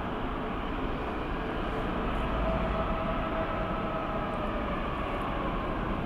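Jet engines of a twin-engine widebody airliner at taxi power: a steady rushing hum, with a faint whine through the middle seconds.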